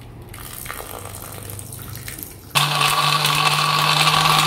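Water pouring from a plastic bottle into a blender jug, then, starting suddenly about two and a half seconds in, an electric blender motor running steadily and loudly as it blends the drink.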